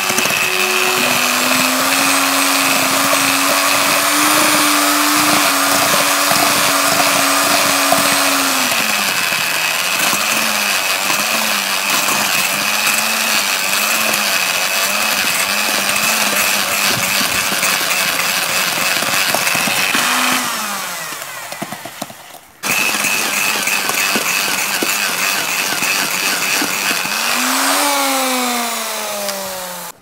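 Corded electric drill spinning a wire brush inside a moka pot's water chamber filled with gravel and wet sand, scouring off rust with a grinding rattle. The motor's pitch wavers under load; it slows and stops about 21 seconds in, starts again abruptly a second later, and winds down with a falling pitch at the end.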